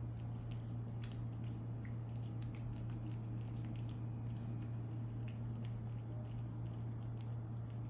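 A cat chewing a mouthful of rice mixed with tuna: faint, irregular small wet clicks. Under it runs a steady low hum, the loudest sound.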